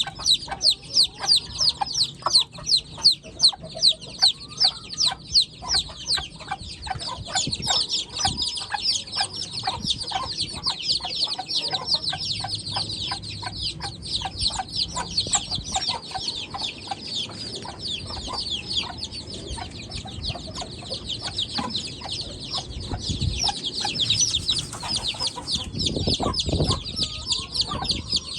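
White Heera Aseel chicks peeping continuously: a dense stream of short, high cheeps, each falling in pitch, several every second.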